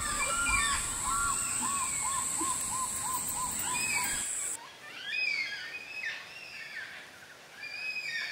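Birds calling: for the first half, a short arched call repeats about three times a second over a steady high-pitched drone. About halfway both stop abruptly, and scattered chirps and whistles from several birds follow.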